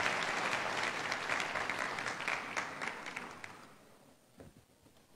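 Audience applauding, the clapping fading out about three and a half seconds in.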